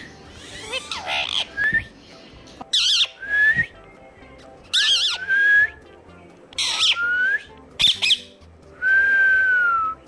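Indian ringneck parrot whistling and squawking in a string of short calls, ending with one long whistle that slowly falls in pitch.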